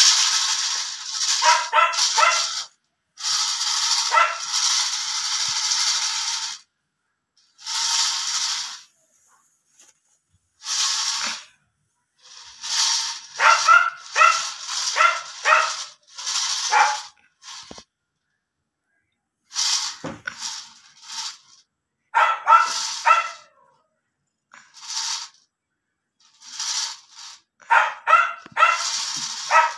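Calico kittens mewing, short high cries coming in quick runs of several at a time, with brief pauses between runs.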